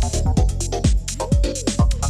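Minimal techno DJ mix played from vinyl records. A steady kick drum lands a little over twice a second, with hi-hats between the beats and a gliding synth line over it.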